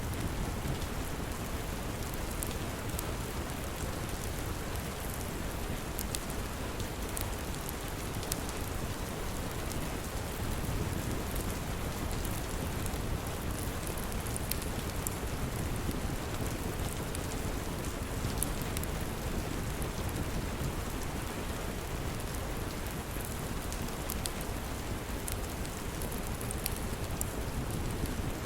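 Steady rain ambience with a low rumble underneath and scattered sharp crackles from a log fire.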